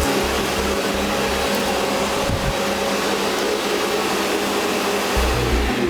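Thomas Parkett Master XT water-filter vacuum cleaner running steadily, with a constant motor hum, while its natural-bristle parquet nozzle sweeps over parquet.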